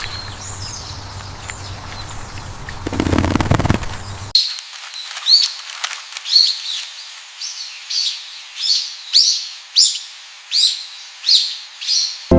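Small birds calling: after a background hiss with a brief rush of noise about three seconds in, the sound cuts to a series of about a dozen short, sharp chirps, one or two a second.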